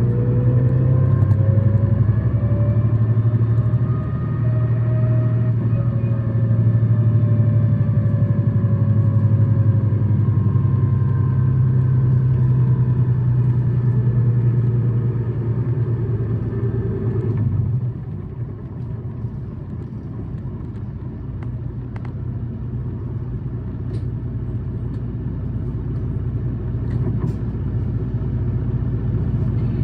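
Tokyu Bus H854's engine running under load with a steady low hum and a whine that rises in pitch over the first few seconds. About seventeen seconds in the engine drops back and the bus runs on more quietly. This bus is known among fans for high revs and an abnormal noise.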